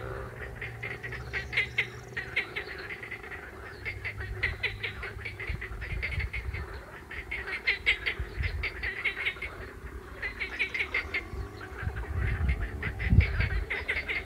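A chorus of frogs calling in rapid pulsed trains that come and go in waves, with a low rumble underneath that grows stronger near the end.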